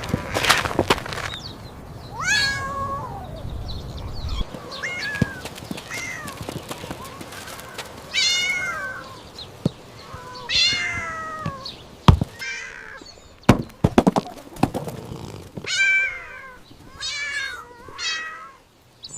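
A cat meowing again and again, about eight short meows that rise and fall in pitch, with a few sharp clicks around the middle.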